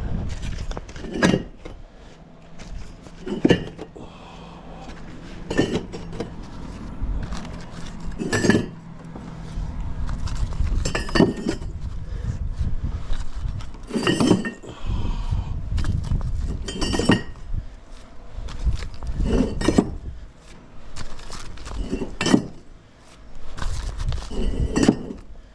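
Perforated clay bricks clinking as they are handled and set down on a stack one at a time, a sharp clink about every two to three seconds.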